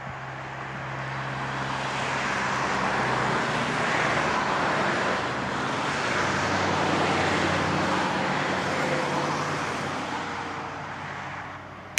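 A motor vehicle driving past: engine and tyre noise swell over the first few seconds, hold, then fade away near the end, the engine note dropping in pitch about halfway through as it passes.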